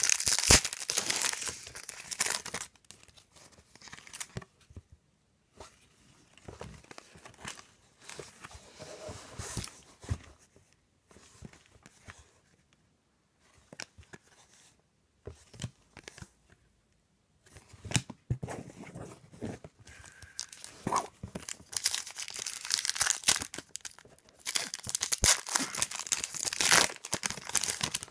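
Foil trading-card pack wrappers crinkling and tearing open, loudest near the start and through the last ten seconds. In between come quieter, scattered rustles of cards being handled and flipped, with short pauses.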